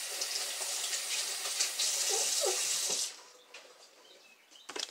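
Kitchen tap running in a steady gush for about three seconds, then shut off; a couple of light clicks near the end.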